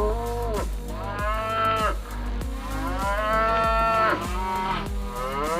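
Cow mooing repeatedly: about four drawn-out moos that rise and then fall in pitch, the one in the middle the longest.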